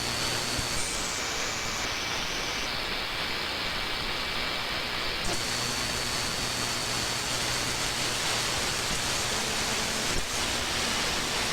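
Shortwave static from an RTL-SDR receiver demodulating an empty frequency: a steady hiss with faint steady whistles from distant carriers. About a second in the hiss grows duller in steps and it brightens again around five seconds in.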